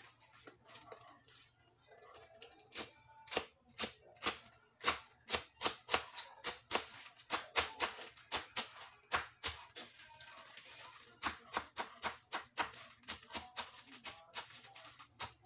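Kitchen knife chopping mustard greens on a wooden cutting board: quick, uneven chops at about two to three a second, starting about two seconds in, with faint music underneath.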